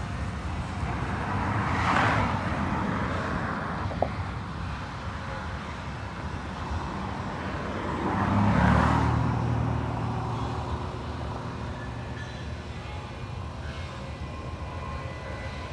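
Road traffic: two vehicles passing close by, one about two seconds in and a second, with a low engine rumble, about eight and a half seconds in. A single sharp click about four seconds in.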